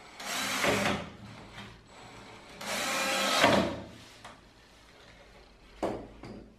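Cordless drill driving a screw into wood in two short runs of about a second each, the second one rising in level as it ends. A short knock near the end.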